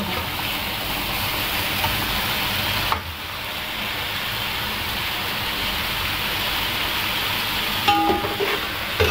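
Raw chicken pieces beginning to fry in oil in a karahi, a steady sizzle while they are stirred. The sizzle drops a little about three seconds in, and near the end a few short, sharper knocks of the stirring spoon against the pan stand out.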